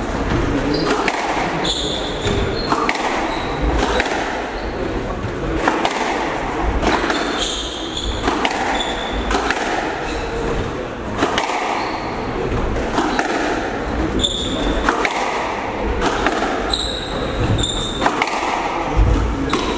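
Squash rally: the ball repeatedly smacking off rackets and the walls, with short high shoe squeaks on the wooden court floor, echoing in the hall.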